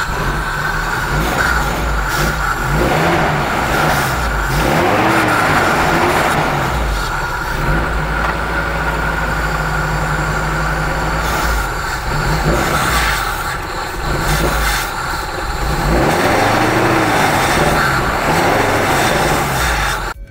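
Maruti Gypsy's four-cylinder petrol engine running with its intake open for throttle-body cleaning, revved up and let back down by hand several times.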